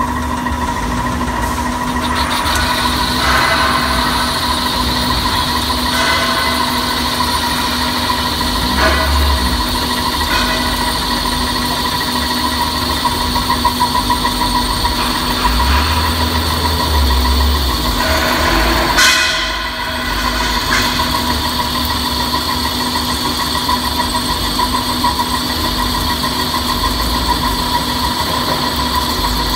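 CNC lathe cutting an external (male) thread at high speed on a spinning metal bar with a single-point threading tool: a steady machine whine with cutting noise, marked by short changes every few seconds and a brief dip about two-thirds of the way through.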